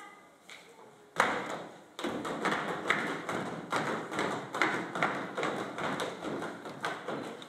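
Footsteps of a group of people walking across a stage floor, beginning with a loud thud about a second in, then steady steps about two or three a second.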